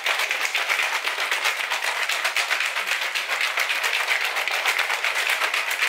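A BlenderBottle shaker cup shaken hard to mix a drink, its wire whisk ball rattling against the plastic in a rapid, even rhythm.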